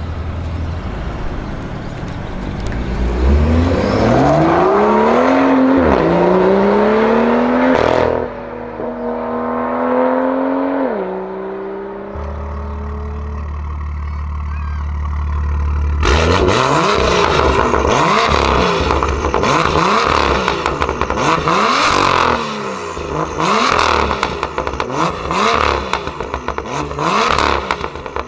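BMW M2 (F87) turbocharged straight-six through an Armytrix catless valvetronic exhaust. It accelerates hard away through a gear change, then settles to a low steady idle. From about halfway it gives a quick series of short free revs, each rising and falling.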